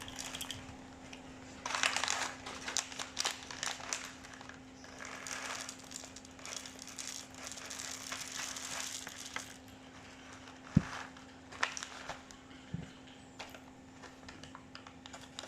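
Whole coffee beans rattling and rustling as they are scooped and poured while being measured out for grinding, with a few sharp knocks about two thirds of the way through. A steady low hum runs underneath.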